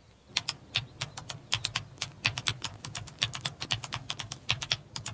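Computer keyboard typing: a quick, irregular run of key clicks over a faint low hum, stopping about five seconds in.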